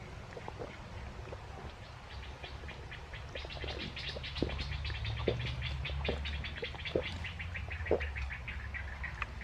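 Gulping water from a plastic bottle, a swallow about every second. Behind it, a rapid even chirping trill runs from about two seconds in almost to the end.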